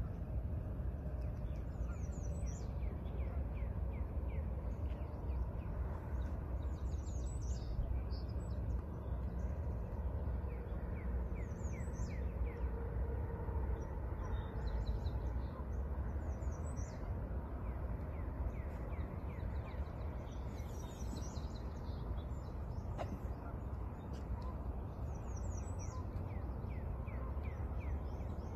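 Songbirds singing: a short, high phrase repeated every few seconds, with runs of quick falling notes between, over a steady low rumble.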